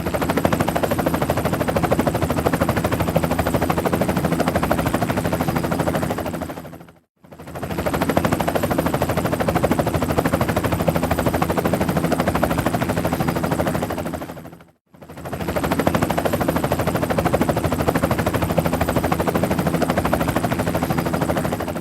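Helicopter sound effect: rapid rotor chop over a steady engine drone. It plays as a loop, fading out and cutting back in twice, about 7 and 15 seconds in.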